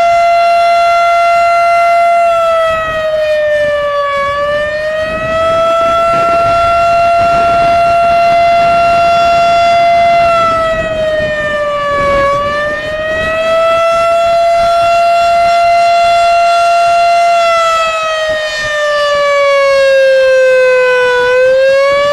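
Town air-raid-type outdoor warning siren sounding loud and wavering. It holds a high tone, dips briefly and swings back up twice, then slides down slowly near the end before rising again.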